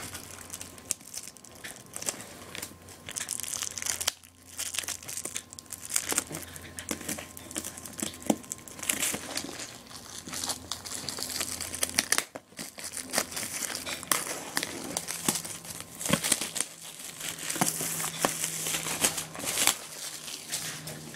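Plastic wrapping and bags crinkling and rustling as they are handled and pulled open, full of small crackles and sharp clicks.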